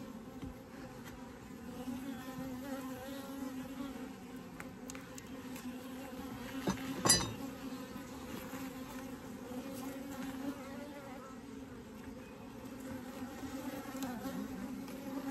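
Honeybees buzzing steadily around an open beehive, a continuous hum at one pitch. A single sharp click sounds about halfway through.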